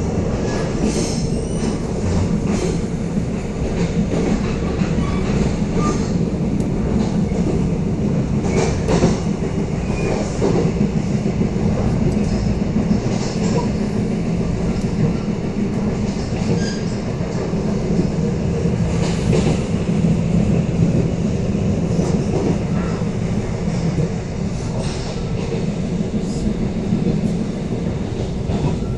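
Korail Mugunghwa-ho passenger train running at speed, heard from inside the carriage: a steady rumble of wheels on rail with a constant hum and scattered clicks and squeaks.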